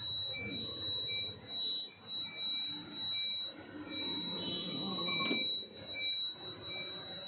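Repeated short electronic beeps, roughly two a second, over a steady high-pitched whine and a low background din.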